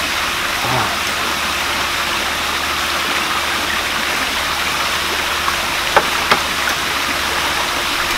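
Corn fritter batter frying in hot oil in a pan on a portable gas burner, a steady sizzle, with a couple of small clicks about six seconds in.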